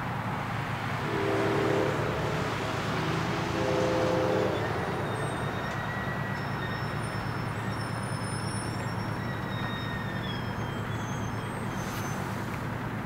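Distant horn of an approaching Metro-North commuter train, two chord blasts about two seconds apart, sounding its warning for the grade crossing. Steady road and background noise throughout, with a faint click near the end.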